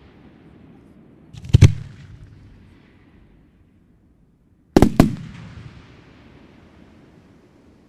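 Aerial firework shells bursting with sharp bangs: a small pop and two loud cracks about a second and a half in, then two more close bangs about five seconds in, each rolling away in a fading echo.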